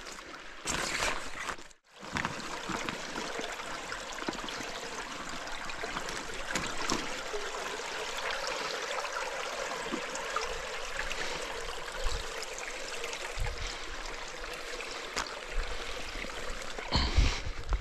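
Small forest stream trickling over rocks, a steady rush of water that drops out briefly about two seconds in. A few low knocks near the end.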